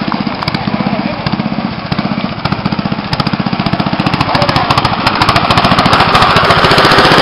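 Racing lawn tractor's small engine running with a rapid, even popping from its exhaust. It grows louder from about halfway through as the tractor drives up close.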